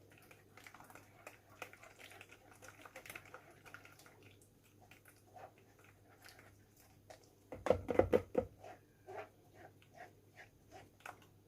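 Quiet kitchen handling sounds of blended raisin juice being worked through a sieve: scattered small clicks and scrapes, with a louder short cluster of knocks about eight seconds in.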